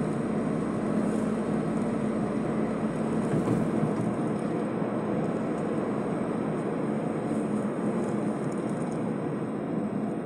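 Steady road and engine noise of a moving vehicle, heard from inside as it drives along, with a constant low hum under an even rushing noise.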